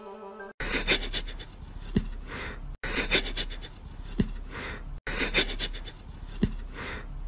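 Puppy breathing in quick, breathy huffs, with sharp clicks. The same short stretch of sound repeats three times with abrupt cuts.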